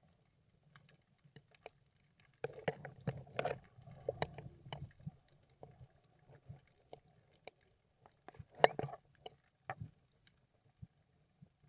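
Underwater sound picked up by the camera: scattered sharp clicks and crackles over a low hum, with two clusters of louder, rough noise, one from about two and a half to five seconds in and a shorter one near nine seconds.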